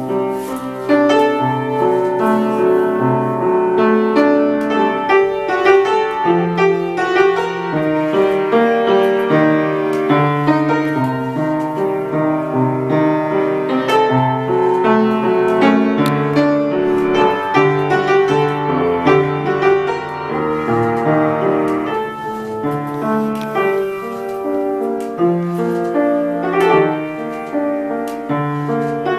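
Piano playing alone, a flowing run of notes and chords with no voice.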